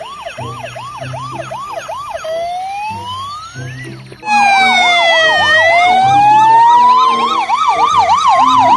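Toy ambulance's electronic siren wailing in quick rising whoops, about three a second, then a slower rising wail. About four seconds in, a much louder real ambulance siren takes over, several siren tones sweeping up and down together. Soft background music plays underneath.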